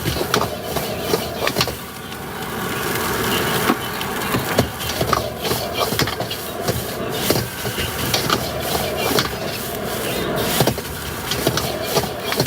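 Street-food stall cooking noise: many irregular sharp knocks and clatters of cooking utensils over a steady background noise.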